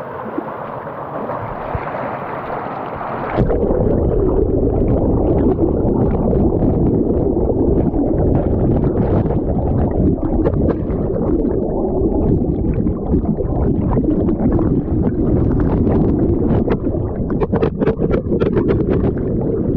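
Rushing river rapids, then about three and a half seconds in the sound suddenly turns to a louder, muffled deep rumble heard from underwater, with many short clicks and crackles from churning water and bubbles.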